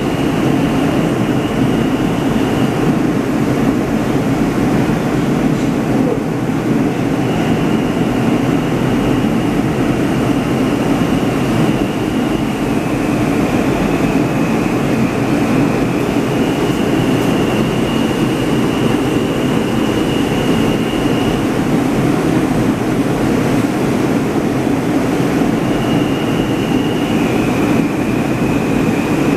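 R160 New York City subway train running steadily on the rails, a continuous loud rumble with a thin high whine that holds for several seconds at a time and steps between two close pitches.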